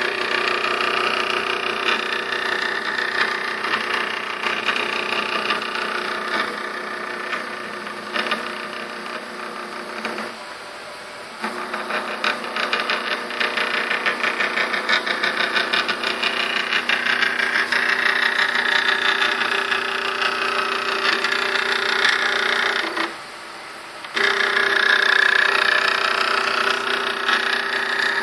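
Stepper motor of a homemade CNC machine running under its controller board, stepping clockwise and then counter-clockwise with a steady whine. It stops for about a second twice, about ten seconds in and again about 23 seconds in, then starts again.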